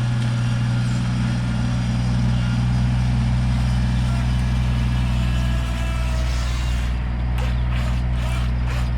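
A steady low mechanical hum, unchanging in pitch, like an idling engine, with a run of short, quick clicks from about seven seconds in.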